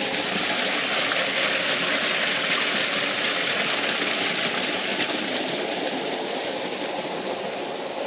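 Small waterfall pouring into a deep pool in a mountain stream: a steady rushing of water.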